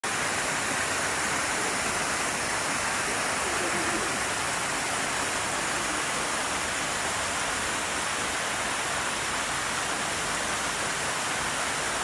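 An 80-foot waterfall pouring down a rock face and splashing over boulders: a steady, even rush of falling water.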